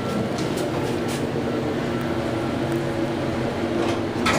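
ThyssenKrupp elevator car travelling between floors, heard from inside the cab: a steady running hum with a low drone. A single click near the end.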